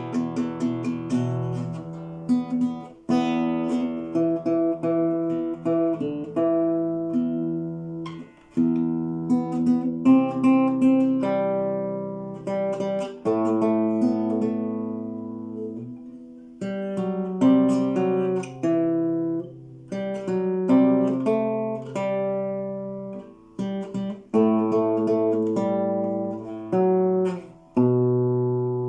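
Solo acoustic guitar playing an instrumental melody over plucked chords, notes ringing and decaying in phrases, without singing. A last chord rings out near the end.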